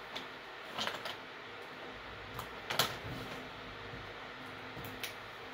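A few short rustles and clicks from a clear plastic makeup pouch and the bottles and tubes inside it being handled, the loudest about three seconds in.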